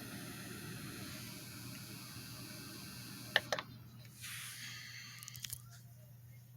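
Sunbeam SFH 442 fan-forced space heater's fan running on low, a steady airy hiss with a buzz. Two sharp clicks of its control come about three and a half seconds in, and the airflow dies away, followed by a soft rustle and a few small handling clicks.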